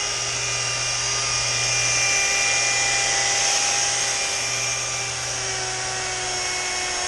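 Handheld electric rotary polisher running steadily with its pad buffing window glass with polishing compound, a steady motor whine whose pitch sags slightly near the end as the pad bears on the glass.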